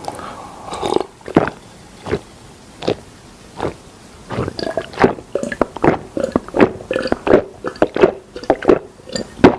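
Close-miked eating sounds: wet smacking and clicking of a mouth chewing smoked chicken, irregular and sparse at first, then quick and steady from about halfway through.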